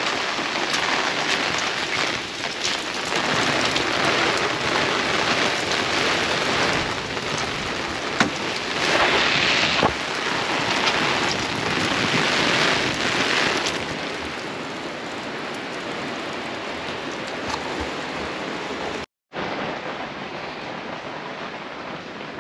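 Heavy rain falling steadily, with drops striking an open umbrella held overhead. Near the end the sound cuts out for a moment, and the rain is then fainter.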